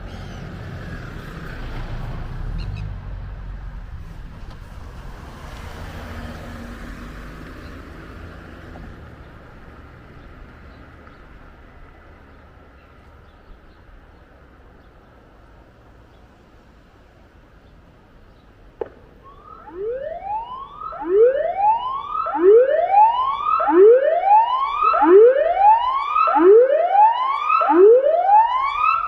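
Tsunami warning siren sounding its alert tone, a repeated rising whoop, about one sweep every 1.3 seconds, beginning about two-thirds of the way in and quickly growing loud. Before it there is only steady outdoor background noise.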